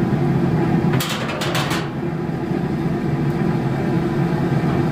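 Metal grill grate clattering, four or five sharp rattles in quick succession about a second in, as the grate is slid across the grill's rails, over a steady low hum.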